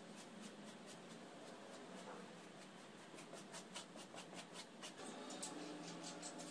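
Faint, quick strokes of a paintbrush dabbing and brushing oil paint onto stretched canvas, about four a second, with a short pause about five seconds in.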